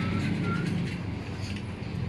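A motor engine running, its low hum fading away over the first second or so.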